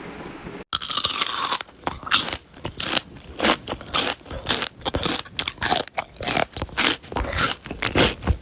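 Close-up chewing and biting of cooked octopus: a quick run of crunchy chews, about three a second, starting suddenly about a second in.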